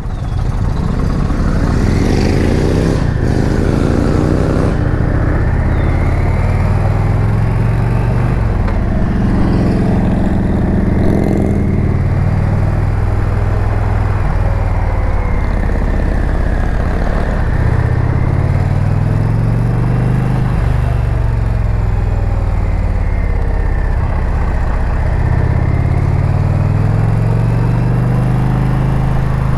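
Indian Challenger motorcycle's liquid-cooled V-twin engine under way, its pitch climbing as the bike accelerates four times and falling back between, over a steady rush of wind.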